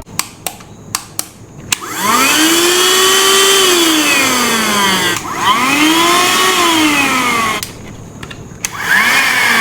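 Portronics Mopcop handheld rechargeable vacuum cleaner's motor switched on, whining up in pitch and then winding down, twice over. It starts up a third time near the end, after a few faint clicks at the start.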